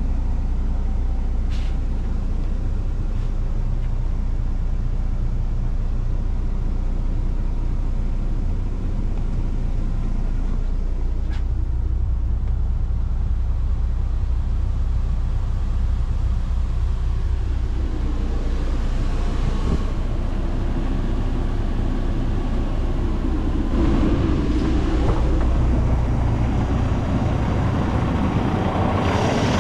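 Cummins X15 diesel engine of a semi truck idling steadily, heard from inside the cab, with a couple of faint clicks. It gets a little louder and brighter in the last few seconds.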